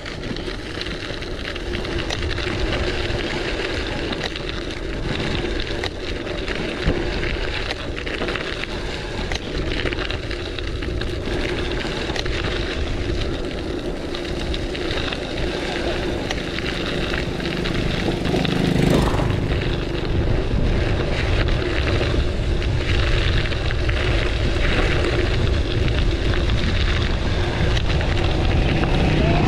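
Wind buffeting the microphone of a camera on a moving gravel bike, with the steady rumble of the tyres rolling on the trail. A single louder bump a little past the middle.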